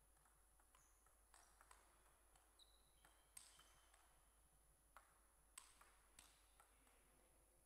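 Table tennis ball being served and rallied: a dozen or so sharp clicks of the celluloid-type ball off paddles and the table, irregularly spaced, the loudest about three and a half and five and a half seconds in.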